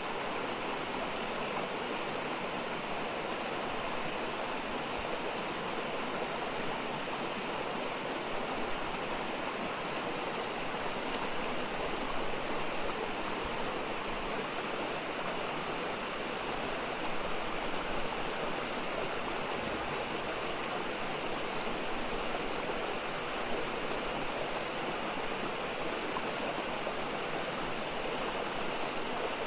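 Mountain stream flowing over rocks, a steady rushing water sound.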